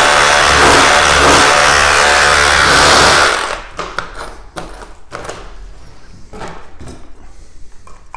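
Bosch GBH18V-26 cordless SDS Plus rotary hammer drill with a scutch chisel hammering into brick, running steadily and then stopping about three seconds in. Light knocks and scrapes follow.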